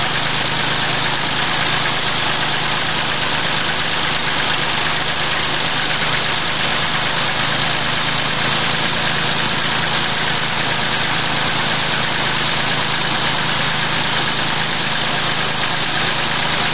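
Tractor diesel engine, running on an 80% jatropha biodiesel and 20% fossil diesel blend, running steadily with no change in speed.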